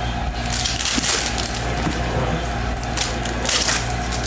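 Foil wrapper of a basketball card pack crinkling as it is handled and torn open, in two bursts.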